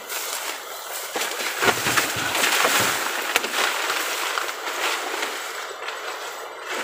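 Water rushing and sloshing in a muddy canal, an irregular hiss that is loudest in the middle, with rustling and a few clicks from grass and leaves at the bank.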